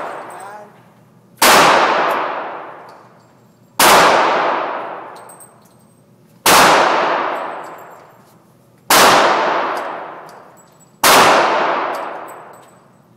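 Revolver fired five times, about one shot every two and a half seconds, each shot followed by a long echoing decay in the enclosed indoor range.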